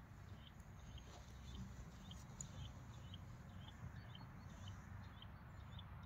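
Faint outdoor ambience: a short, high chirp from a small animal repeats evenly about twice a second over a low, steady rumble.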